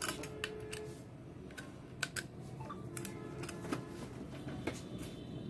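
Scattered sharp clicks and taps, about a dozen, as hands handle a digital hanging luggage scale and fit its coin-cell battery.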